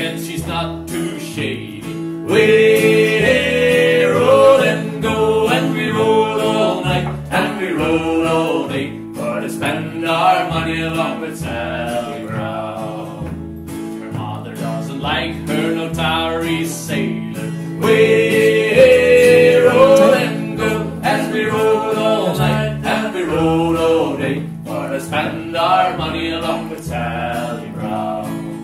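Live acoustic string trio, with plucked double bass, strummed acoustic guitar and fiddle, playing a country/folk song. Voices sing over a steady bass beat, with the loudest sung passages starting about two seconds in and again about two-thirds of the way through.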